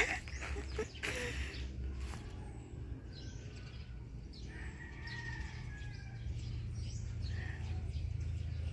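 Several birds chirping and calling, with a few footsteps crunching on gravel in the first two seconds.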